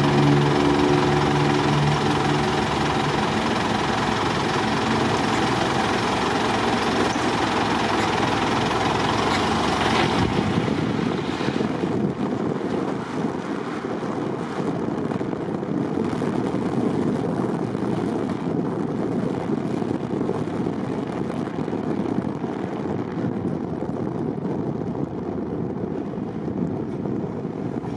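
A car being driven: steady road and engine noise. About ten seconds in, the noise thins and eases a little.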